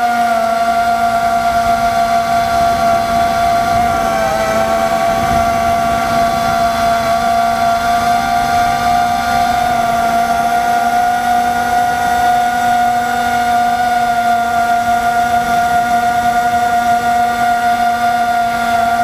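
FPV drone's brushless motors and propellers whining at a steady pitch, dipping briefly about four seconds in as the throttle eases, then holding steady.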